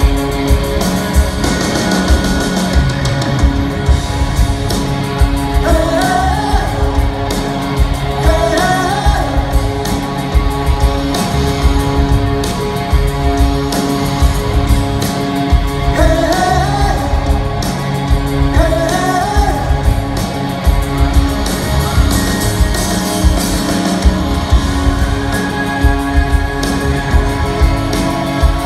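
Live rock band playing in a large hall: drums beating steadily under guitars and singing. A pitched line rises in two pairs of slides partway through.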